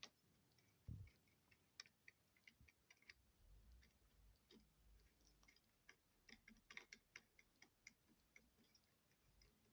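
Faint, irregular small clicks and taps of plastic parts and screws being handled as a multimeter is put back together, with a soft thump about a second in.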